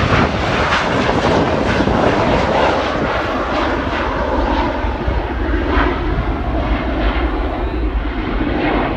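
Allegiant McDonnell Douglas MD-80-series jet's rear-mounted Pratt & Whitney JT8D turbofans at takeoff thrust through the takeoff roll, rotation and climb-out. It is a loud, rough, crackling jet rumble that eases slightly as the plane climbs away.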